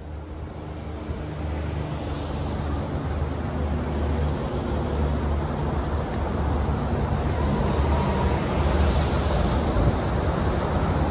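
An approaching train: a low rumble that grows steadily louder.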